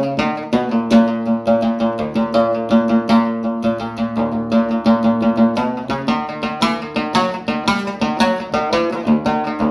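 Background music: a plucked string instrument playing rapid, repeated notes over a held low note.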